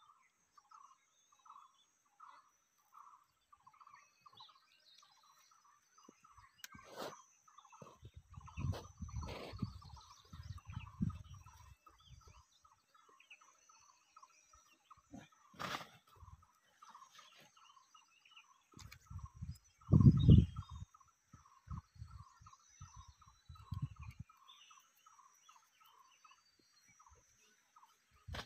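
Hands working thin sticks into the soil: rustling and knocks in two stretches, with a loud thump about twenty seconds in. Behind them, a steady series of short chirps, about two a second.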